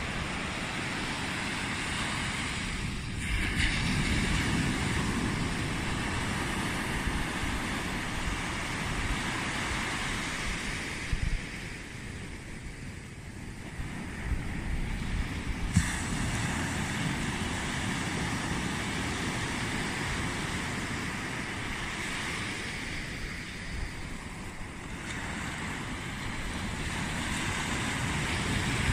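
Small waves breaking and washing up a sandy beach, the surf noise swelling and easing in slow surges about every ten seconds, with wind rumbling on the microphone.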